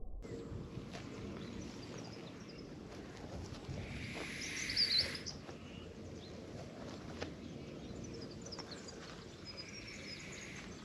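Outdoor ambience: a steady low rumble of wind and background noise with a few bird chirps, loudest about four to five seconds in and again near the end.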